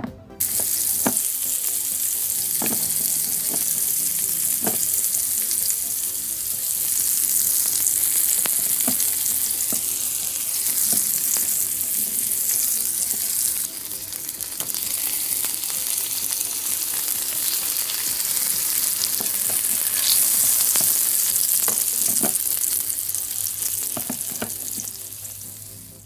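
Sizzling sound effect of meat frying on a grill, added in post-production. It starts suddenly about half a second in and fades out near the end, with a few light clicks over it.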